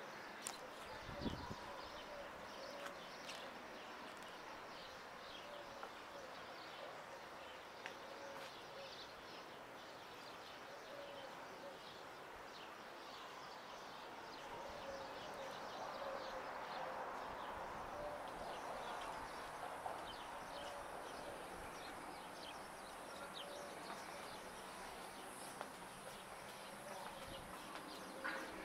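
Outdoor ambience of birds calling: many short, high chirps over a low, repeated cooing call, with a faint high steady hiss joining about two thirds of the way through.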